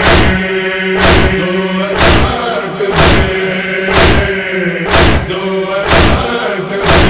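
Noha backing without the lead voice: a chorus holding a sustained hum, beaten through by heavy matam (chest-beating) thumps about once a second.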